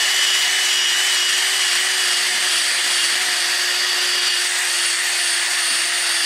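DeWalt Atomic cordless drill spinning a wire wheel brush against an aluminum boat hull, scrubbing the bottom clean before sealing. The drill holds one constant speed: a steady motor whine over the hiss of wire bristles on metal.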